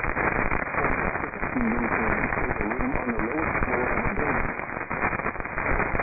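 Weak AM broadcast signal received through a KiwiSDR web radio tuned to 970 kHz: a steady hiss of crackling static with a faint, garbled voice buried under it through the middle.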